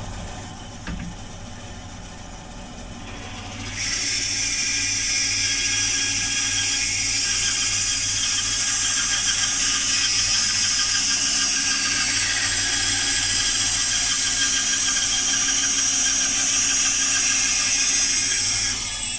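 LumberJack bandsaw running with a steady hum. From about four seconds in, its blade cuts through a thick block of rifle-stock wood, adding a loud, steady high hiss that stops just before the end as the cut finishes.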